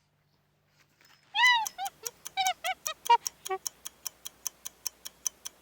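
Chimpanzee calls: a loud rising-and-falling hoot about a second in, then several shorter calls, over a steady ticking of about four ticks a second.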